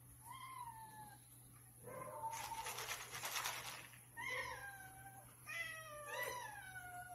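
Several hungry domestic cats meowing for food, about five drawn-out meows falling in pitch, two of them overlapping near the end. A stretch of rasping noise comes in the middle, the loudest part.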